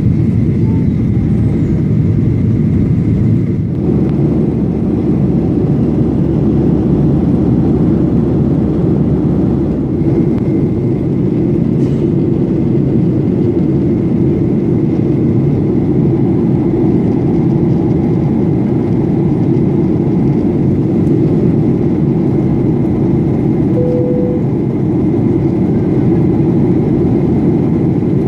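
Steady cabin roar inside a Boeing 737-800 in flight: its CFM56-7B engines and the airflow, with a faint steady whine above. The low rumble eases slightly about ten seconds in, and a short beep sounds near the end.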